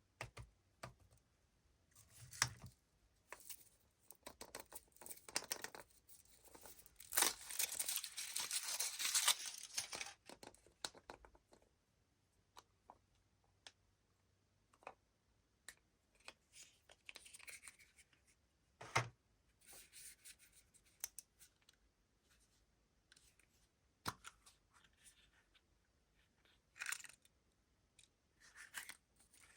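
Candy wrappers and packaging being torn open and crinkled by hand, in irregular bursts with small clicks and snaps between them. The longest, loudest stretch of tearing comes about seven to ten seconds in.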